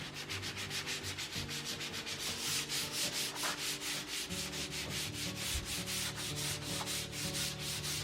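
Sanding by hand with quick back-and-forth rubbing strokes, about six a second, with background music underneath.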